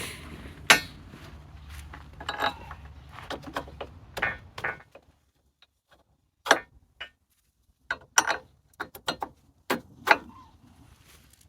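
Scattered clicks, taps and knocks of hand tools and metal parts being handled, the sound of hand work fitting parts onto an old sawmill carriage. A low background hum underlies the first half and stops about five seconds in.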